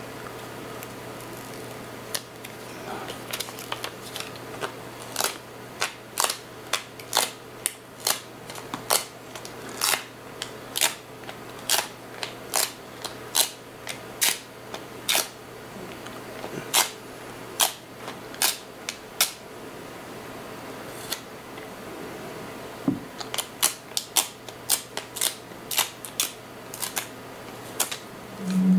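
Sharp, irregular clicks, one or two a second, as a dust-absorber sticker is dabbed onto and lifted off a phone's glass screen, with a pause of a few seconds in the middle. A brief low hum at the very end.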